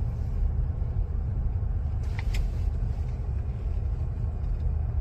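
Steady low road rumble inside a moving car, with a brief faint click about halfway through.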